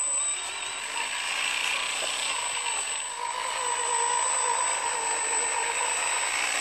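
Electric drive motor and gearbox of a homemade radio-controlled 6x6 farm truck whining as it crawls over loose dirt under a load of sacks, the pitch wavering gently as the load changes.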